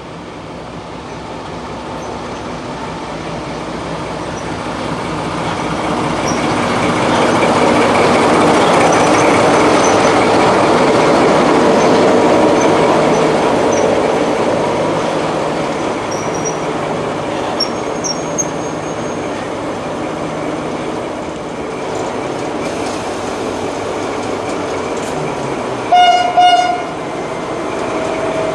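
Class 14 diesel-hydraulic locomotive D9526 and its coaches running through the station. The engine and wheels grow louder as the locomotive nears and passes close by, then hold steady as the coaches roll past, with a few faint brief squeals. Near the end come two short horn blasts.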